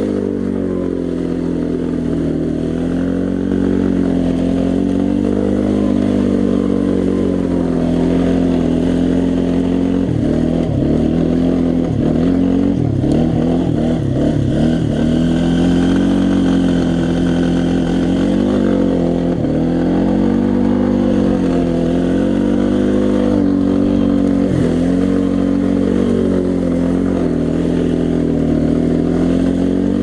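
A 2016 Kawasaki Brute Force 300 ATV's single-cylinder engine running under load while riding, its note rising and falling with the throttle. About a third of the way in, the note turns choppy and uneven for a few seconds, then settles back into steady rises and falls.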